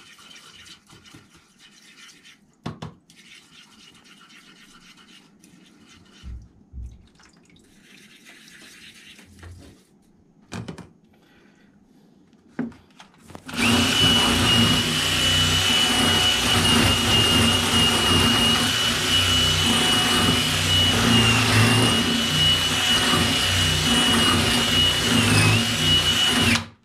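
DeWalt cordless drill spinning a wire cup brush inside a lawnmower carburettor's float bowl, scouring out dirt. It runs steadily with a high whine from about halfway through and cuts off suddenly near the end. Before it starts there are only a few light knocks.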